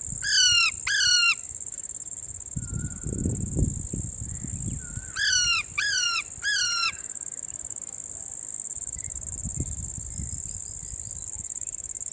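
Parrot giving short, loud calls that fall in pitch, twice near the start and three times about halfway through, over a steady high-pitched insect drone.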